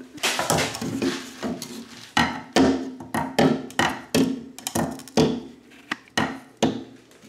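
Repeated sharp knocks, about two a second, of a spirit level being set and bumped against a tiled shower wall to check whether the tile is flat.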